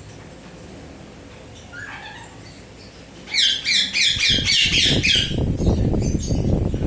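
Indian ringneck parakeet giving a quick run of harsh, repeated squawks lasting about two seconds, after a faint short call. Low rustling and thumps start during the squawks and carry on to the end.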